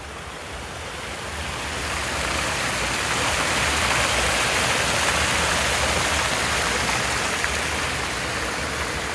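Muddy floodwater rushing and pouring over the stone edge of a cobbled spillway channel, a stream swollen by heavy rain. A steady rush that grows louder over the first few seconds.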